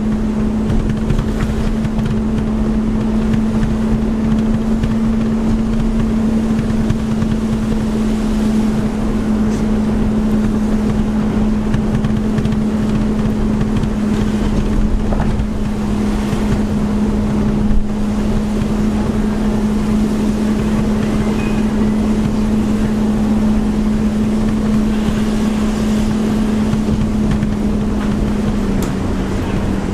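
Car engine and tyre noise while driving along a road: a steady engine hum over a rough rumble, the hum dropping slightly in pitch near the end.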